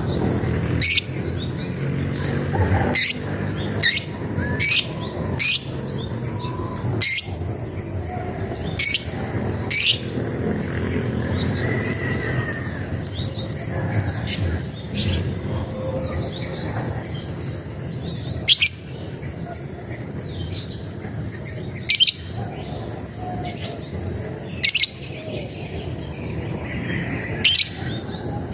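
A labet bird giving its challenge call to rivals: short, sharp, high-pitched call notes, one every one to three seconds at an irregular pace. A steady high insect-like drone runs underneath.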